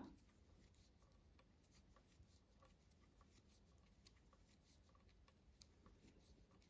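Near silence with faint, irregular small clicks of metal knitting needles as knit stitches are worked.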